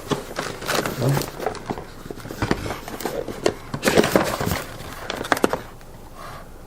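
Cardboard box and packaging being rummaged through by hand: a run of irregular knocks, taps and rustles as items are moved and lifted out.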